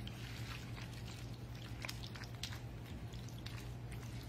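A plastic spoon stirring a wet, saucy mix of shaved beef, onions and peppers in a skillet: soft squishing with many light clicks and ticks, over a steady low hum.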